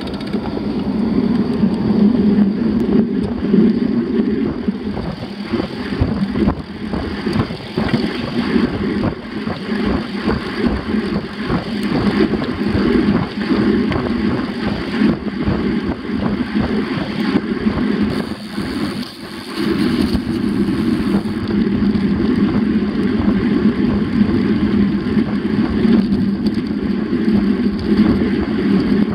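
Wind buffeting the microphone of a handlebar-mounted camera on a moving bicycle, with a continuous rumble and rattle from the tyres on the paved path. It eases briefly about two-thirds of the way through.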